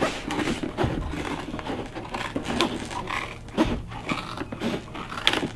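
Cardboard and plastic toy packaging being handled, irregular rustling with scattered short clicks and knocks.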